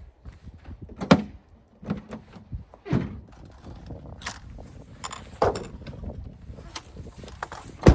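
Footsteps, then a series of clicks and hard clunks as a folding hard tonneau cover on a pickup bed is unlatched and folded back. The loudest thunk comes near the end.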